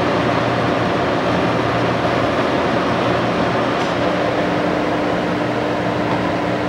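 Monarch 20-CM heavy-pattern engine lathe running under its 20 hp main drive motor, a steady mechanical hum. About four seconds in, a steady whine joins the hum.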